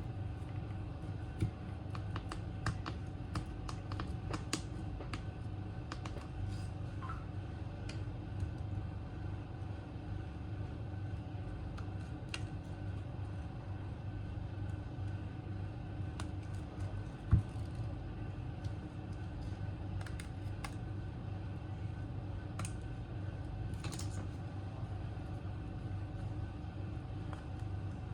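Scattered small clicks and taps of small tools and parts being handled while a Samsung Galaxy A15 phone is taken apart, over a steady low hum; one sharper knock about seventeen seconds in.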